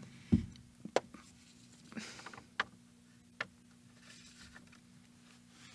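A congregation leafing through Bibles to find a passage: a brief rustle of turning pages and scattered small clicks and knocks, with one low thump near the start. A faint steady hum lies underneath.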